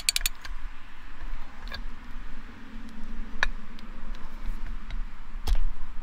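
Steel hardware of a trailer coupler lock clicking and clinking as the piece on top of its post is snugged down: a quick run of clicks at the start, then a few scattered single clicks, the sharpest about five and a half seconds in.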